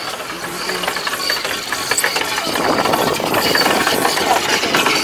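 A tour boat's engine running steadily with a dense clatter, growing louder about halfway through.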